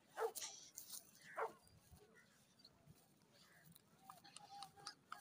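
Near silence, broken by a few faint, short distant cries, the clearest about a third of a second in and again about a second and a half in.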